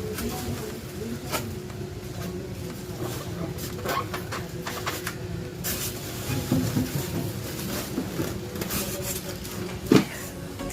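Unpacking and handling noises from an espresso machine and its packaging: scattered clicks and knocks with some rustling, and one sharper knock near the end, over a steady low hum.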